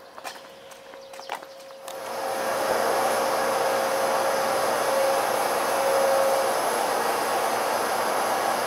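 Stationary two-car electric train at a platform, its onboard equipment running with a steady blowing hiss. The hiss starts abruptly about two seconds in, after faint outdoor ambience with a few light taps.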